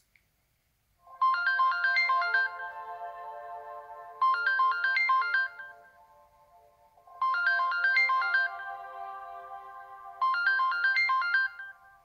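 LG Q7 phone playing one of its built-in ringtones: a short, bright figure of quick notes that repeats four times, about every three seconds, starting about a second in. Each repeat trails off into held tones that fade.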